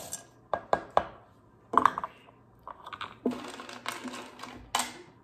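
Semi-sweet chocolate chips poured from a measuring cup into a glass mixing bowl of dry ingredients: a string of sharp clicks and rattles as they land, with a louder cluster about two seconds in.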